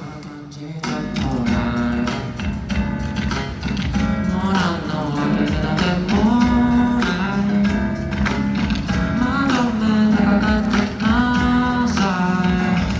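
Live song: a singer holding and bending long notes over guitar accompaniment.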